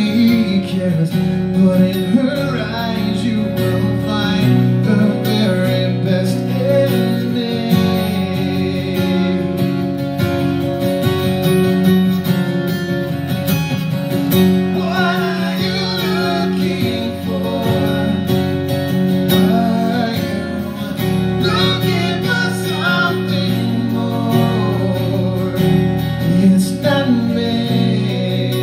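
Live acoustic guitar strummed in steady chords, with a man singing over it in stretches.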